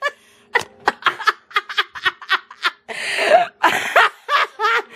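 Laughter: a quick run of short laughs, about three a second, with a longer, noisier laugh about three seconds in.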